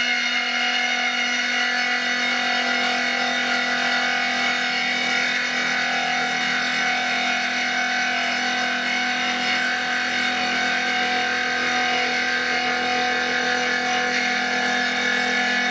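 CNC router spindle running with a steady multi-pitched whine as its 12 mm three-flute end mill cuts along the edge of a board to square it, the gantry moving the spindle across.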